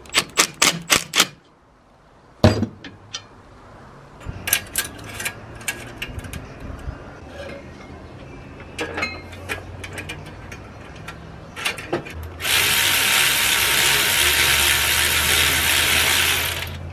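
A cordless driver turning a socket on a bolt of a stainless exhaust pipe, clicking about five times a second, stops a second or so in. Scattered clinks and knocks follow as the stainless downpipe is fitted to the turbo. From about twelve seconds in, a cordless electric ratchet runs steadily for about four seconds, driving in the turbo flange bolts, and this is the loudest sound.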